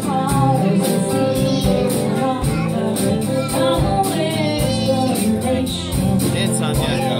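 Live band playing: a woman singing lead over guitars and a drum kit keeping a steady beat.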